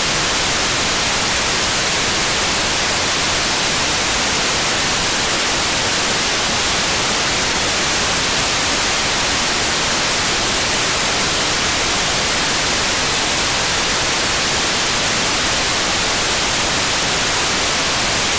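Steady, unchanging hiss from an RTL-SDR receiver's FM demodulator tuned to 435.7 MHz, the D-Star-ONE Sparrow satellite's downlink. It is receiver noise, with no data burst standing out from it.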